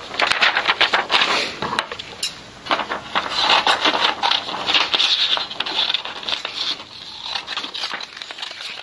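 Sheets of paper rustling and sliding over a wooden tabletop, with crinkling and many small clicks, in several loud spells with brief lulls.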